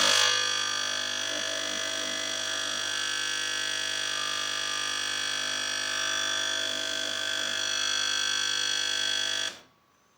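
Steady synthesizer chord, a dense held electronic tone that cuts off suddenly near the end.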